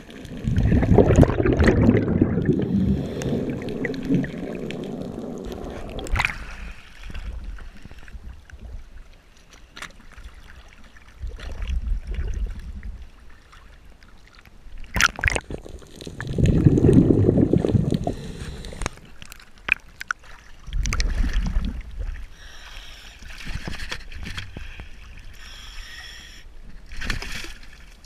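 Water heard through a diver's camera: a long burst of bubbling near the start, typical of a scuba diver exhaling through a regulator, then water sloshing and splashing at the surface in bursts every few seconds.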